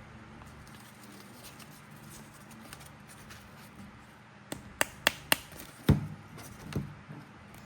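Hard plastic toy figures being handled. A little past halfway comes a run of about five sharp clicks and knocks, the last the loudest, and a softer knock follows.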